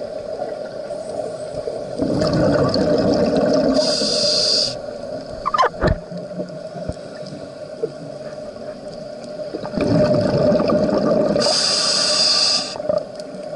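Scuba breathing heard underwater: two breaths about eight seconds apart, each a long rush of exhaled bubbles through the regulator that ends in a high hiss. A short sliding squeak comes about halfway through.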